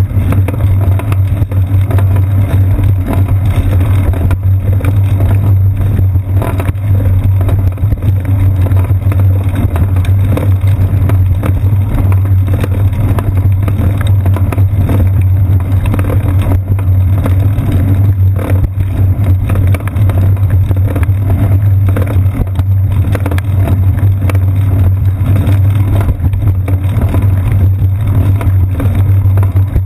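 Loud, steady low rumble of a bicycle rolling over paved path and concrete bridge deck, picked up as road vibration through a seat-post-mounted GoPro Hero 2 camera.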